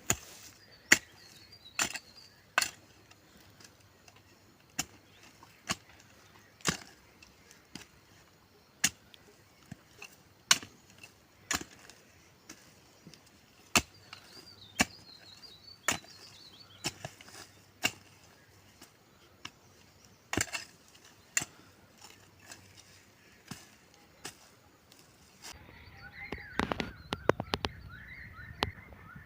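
A hand tool striking again and again with sharp chopping blows, roughly one a second at an uneven pace. A quick flurry of clicks and rustling comes near the end, and faint bird chirps are heard throughout.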